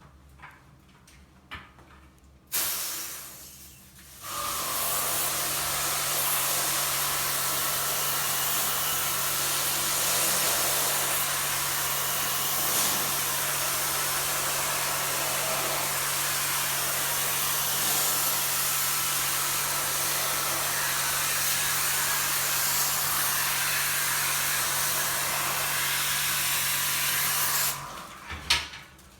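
High-pressure washer spraying water into an air conditioner, a loud steady hiss over the low hum of the pump motor. There is a brief spurt first, then a long continuous spray that cuts off near the end, followed by a single knock.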